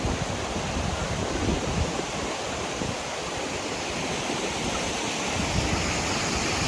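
Waterfall: a steady rush of falling water, with a low, uneven rumble of wind on the microphone.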